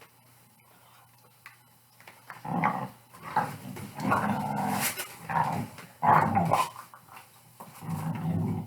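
Pit bull play-growling: after a quiet start, a series of rough growls in short bouts, about half a second to a second each, some closely run together.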